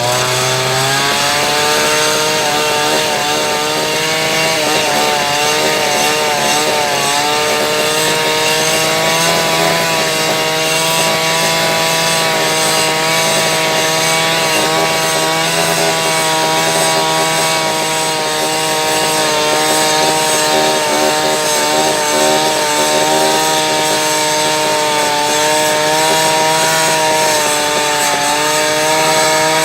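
An engine running steadily at high speed with a slightly wavering pitch.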